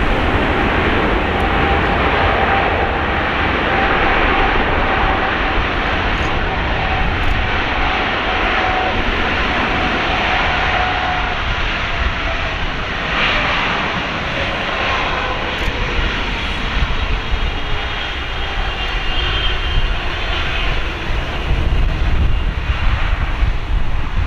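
Boeing 777-300ER's GE90-115B turbofan engines running as the airliner comes in to land: loud, steady jet noise with a whine that slowly falls in pitch as the aircraft passes.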